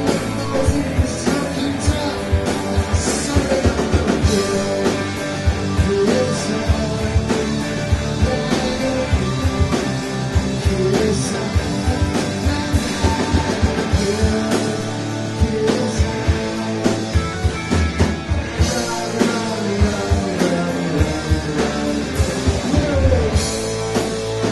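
A live rock band playing: electric guitars over a drum kit keeping a steady beat.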